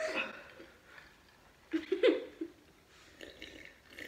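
A held sung note breaks off at the start, then a couple of short, quiet laughs from a teenage boy about two seconds in.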